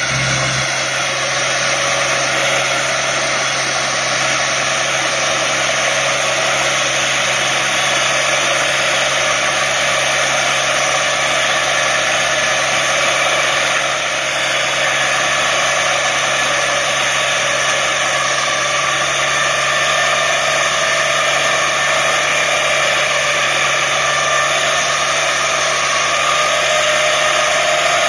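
Tractor engine running under load with a PTO-driven two-drum rotary mower spinning as it cuts tall grass: a steady whir over a low, even hum.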